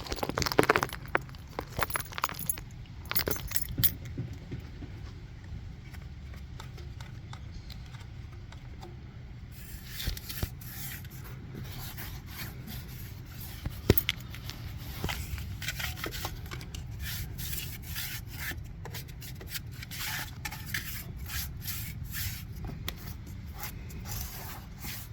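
Scraping and clicking of objects being handled, with light metallic clinks scattered throughout and more frequent small clicks after about ten seconds.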